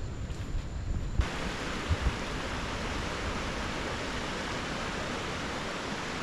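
Steady rush of flowing river water that comes in abruptly about a second in, with a few low thumps around the first two seconds.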